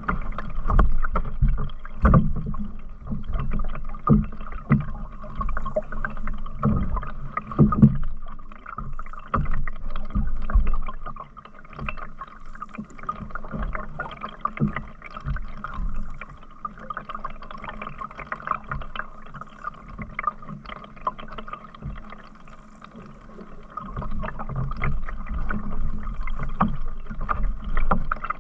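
Canoe under way on a river: paddle strokes and water against the hull, with irregular low thumps through it.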